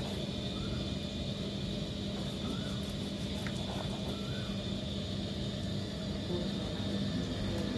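A steady low mechanical hum with a thin high whine above it, like a motor running nearby, with a few faint ticks of a knife slicing raw pork on a wooden cutting board.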